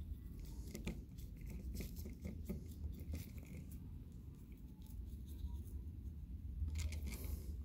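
Faint small ticks and soft scratching of a paintbrush dabbing black acrylic paint into the textured surface of a polymer clay sculpture, with a brief louder rustle near the end.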